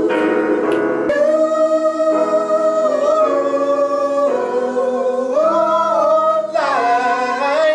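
Gospel choir singing long held notes with instrumental backing, the chords moving every second or so.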